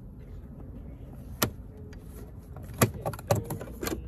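Sharp plastic clicks and knocks from a Tesla Model S A-pillar trim panel being wiggled loose from its clips: one about a second and a half in, then three close together near the end.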